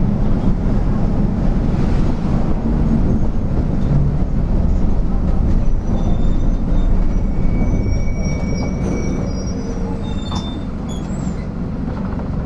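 Mercedes-Benz OF-1722M city bus under way, a steady low rumble of the diesel engine and drivetrain with the cardan driveshaft growling. Thin high squeaks come in around the middle, and a few clicks near the end as the rumble eases slightly.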